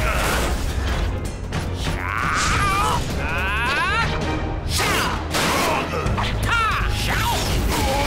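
Cartoon fight sound effects: a robot's mechanical whirring and clanking, with a quick string of sharp hits and swishes and whining tones that slide up and down, over action music.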